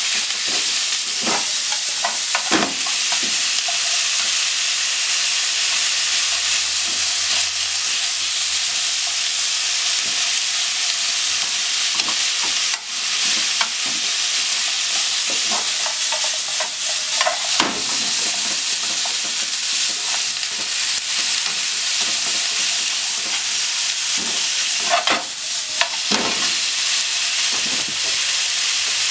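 Thin-sliced pork and onion sizzling steadily in a frying pan, with wooden chopsticks scraping and clicking against the pan now and then as the meat and onion are stirred.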